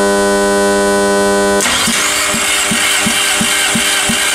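A steady electrical hum, then about a second and a half in the 1.6-litre 16-valve CFNA four-cylinder engine is cranked over for a compression test: a rough mechanical whirr with a regular pulse about three times a second.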